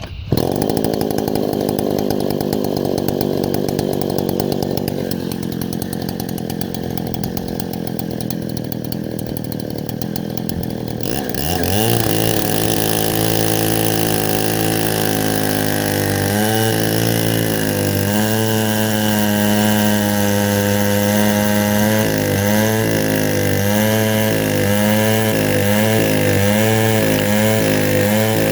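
Chinese clone of a Stihl 070 two-stroke chainsaw on an Alaskan mill, running at low speed, then revving up sharply about 11 seconds in to full throttle. Its note then dips and recovers about once a second as the chain loads in the mesquite cut. The owner says the saw is running really rich.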